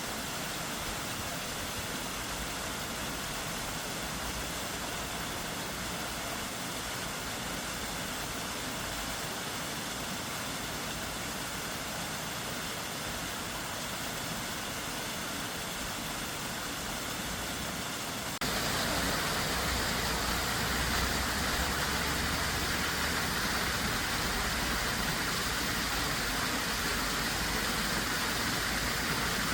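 Steady rushing water of a waterfall. About 18 seconds in it cuts abruptly to a louder, brighter rush.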